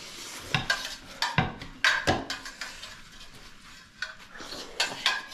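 Spoon clinking and scraping against stainless-steel plates and bowls during a meal, in scattered short clatters, with slurping as food is eaten straight off a lifted plate.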